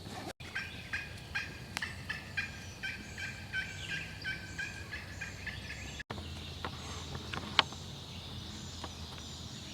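Wild turkey yelping: a steady run of short, evenly repeated notes, about two and a half a second, that stops at an abrupt cut about six seconds in. A single sharp click comes about a second and a half later.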